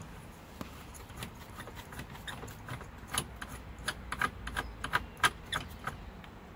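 Small, sharp plastic clicks and ticks, several a second and thickest from about three to six seconds in, as the headlight switch and its plastic dash trim on a Ford E-Series van are twisted and worked loose by hand.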